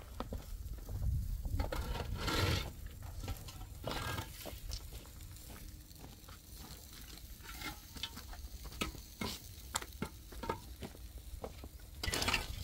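Scattered knocks, clicks and scrapes of hollow concrete blocks being carried and set down, with steps on stony ground; a few louder scrapes about two and four seconds in and again near the end.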